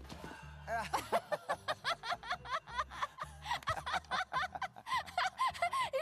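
A rapid string of short, high-pitched chirping calls, several a second, from cartoon characters' voices over soft background music.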